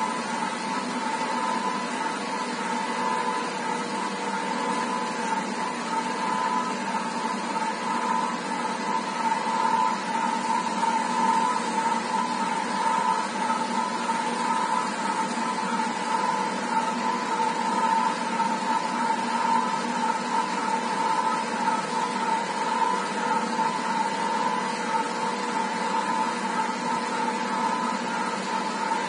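Automatic tank-welding machine running a continuous round seam weld: a steady hiss of the welding arc with a constant whine.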